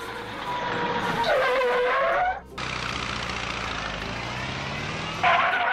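Car sound effect: engine noise with a tyre squeal between one and two seconds in, a brief break at about two and a half seconds, then steady engine noise again.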